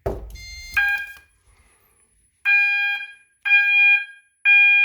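A smoke detector, tripped by a magnet test, sets off a fire alarm horn. The horn sounds in a temporal-three evacuation pattern: one steady-pitched blast about a second in, a pause, then three blasts about a second apart. A knock comes at the very start.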